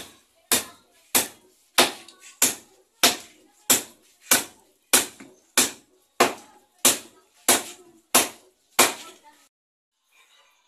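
Steady hammer blows on the wooden formwork boards of a concrete post, about one and a half strikes a second, some fifteen in all. The blows stop about nine seconds in.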